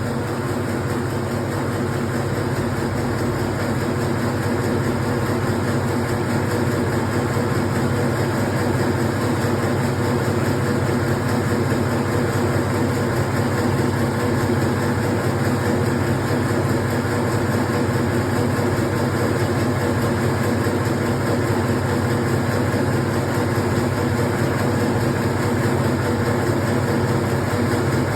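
Meatball-forming machine running steadily, a constant mechanical hum that holds the same pitch and level throughout.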